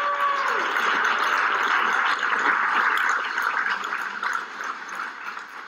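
Audience applauding. The last notes of music fade out about half a second in, and the clapping dies away near the end.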